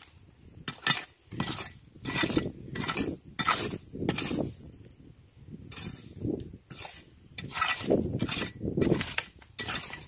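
Small metal hand rake scraping and raking through wet gravel and shell grit, digging for buried clams. Repeated short scraping strokes, about two a second, with a short pause near the middle.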